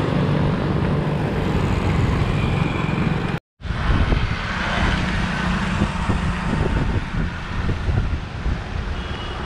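Road traffic noise from a moving bicycle among motorcycles, with a steady rush of wind on the microphone. The sound drops out completely for a moment about three and a half seconds in.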